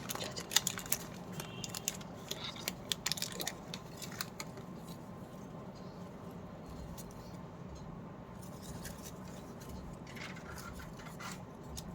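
Light clicks and rustles of candy packaging being handled. They come thick for the first four seconds or so, then give way to a faint steady background with a few more clicks near the end.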